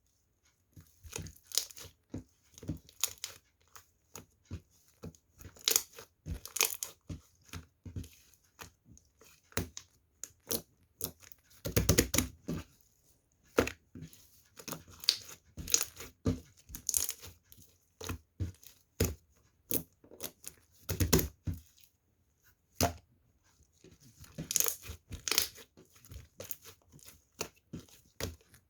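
Homemade slime being squished, stretched and pressed by hand, making irregular sticky crackles and pops in uneven clusters.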